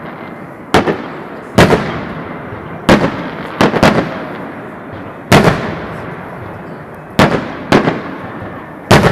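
Aerial firework shells bursting overhead: about nine sharp bangs at uneven intervals, each trailing off in a long rolling echo.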